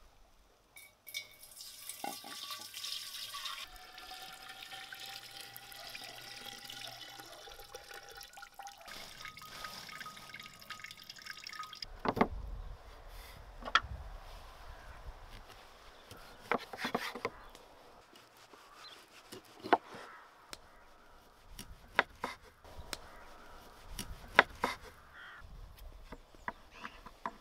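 Fermented berry and fruit juice poured from a clay jug into a large glass jar, the pouring note rising slowly as the jar fills. Then a knife slicing smoked bacon on a wooden board, each cut ending in a sharp knock every second or two.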